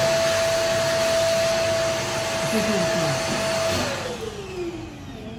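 An electric blower motor runs with a steady high whine over rushing air. It is switched off about four seconds in, and its whine falls away as it spins down.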